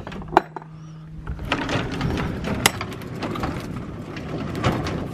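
A metal latch clunks, then a U-Haul truck's rear roll-up cargo door clatters and rattles as it is pushed up, with a few sharper knocks along the way.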